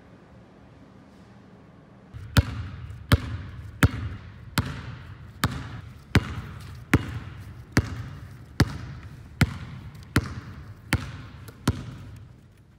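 A basketball dribbled on a hardwood gym floor at a steady pace, about a dozen bounces starting about two seconds in, each bounce echoing through the empty gymnasium.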